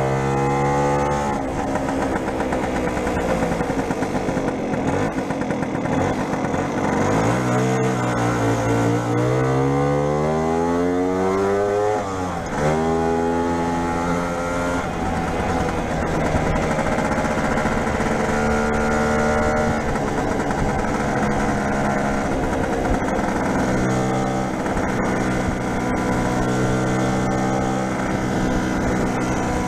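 Lambretta SX200 scooter's single-cylinder two-stroke engine under way, its revs rising and falling. One long climb in revs ends in a sudden drop about twelve seconds in.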